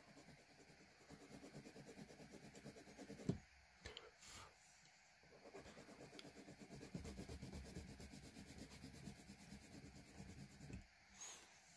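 Graphite pencil shading on textured drawing paper: a faint, rapid run of short scratching strokes. There is a sharp tap about three seconds in, and the strokes pause briefly around four to five seconds.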